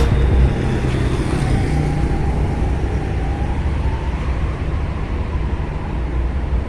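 Road traffic: a steady rumble of vehicles driving past, with a faint engine whine rising and falling in the middle.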